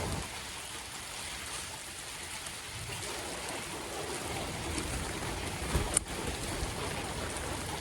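Steady rush of flowing floodwater on a street, with a single short knock about six seconds in.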